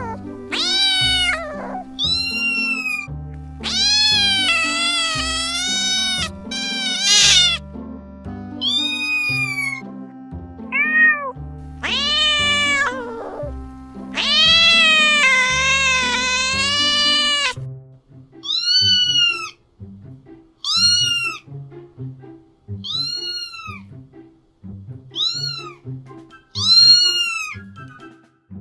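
Domestic cat meowing again and again over background music. It gives several long, drawn-out meows, then from about two-thirds of the way in a run of short meows about one every two seconds.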